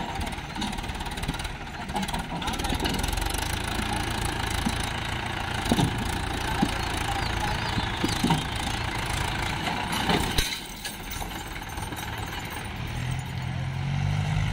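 Swaraj 843 XM tractor's three-cylinder diesel engine running hard under load as the tractor claws its way up a steep sandy bank with its front wheels lifting. The engine eases off briefly about ten seconds in, then runs on.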